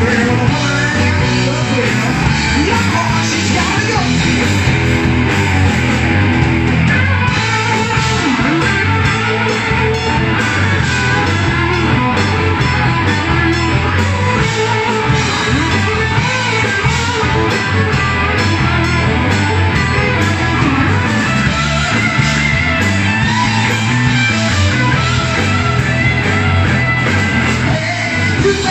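Live rock band playing a Southern rock cover: two electric guitars, bass guitar and a drum kit, loud and unbroken.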